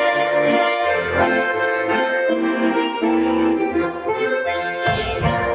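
Accordion (bayan-style) music playing a folk dance tune, sustained chords over a stepping bass line. Near the end a dense noisy sound comes in over it.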